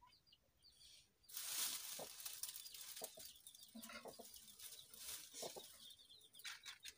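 A match struck about a second in, followed by dry leaves crackling and rustling as they are fed in as kindling for a cooking fire. Hens cluck faintly in the background.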